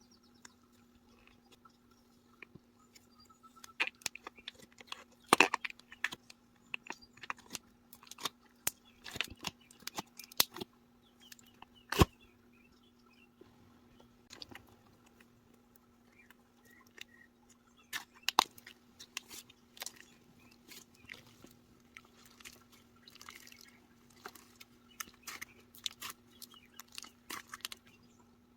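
Slime being squished, poked and stretched by hand, making irregular sticky clicks, pops and small crunches, the loudest about five and twelve seconds in.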